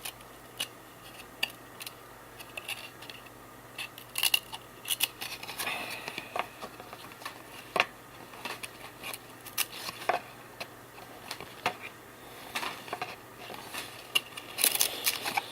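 Trading cards and a card pack wrapper being handled: scattered sharp clicks and taps, with brief crinkling rustles about six seconds in and near the end.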